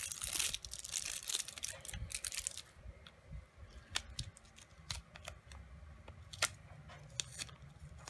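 Hands handling rolls of washi tape over a paper planner: a rustling, tearing noise for the first few seconds, then scattered light clicks and taps.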